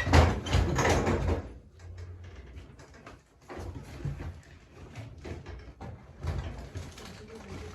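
A cupboard door being pulled open with a loud rush of noise in the first second or so, followed by quieter scattered knocks and rustling as things inside are searched through.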